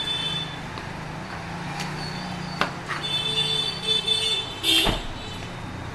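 Street traffic with a vehicle engine running steadily, a few sharp clicks and a short loud burst of noise near the end.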